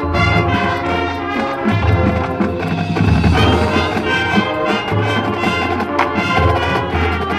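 Marching band playing on the field: brass with trumpets and low brass, over a steady beat.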